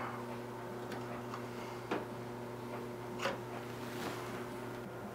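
A few small sharp clicks and ticks of a wire being worked free of a thermostat's terminal by hand, the loudest about two and three seconds in, over a steady low hum.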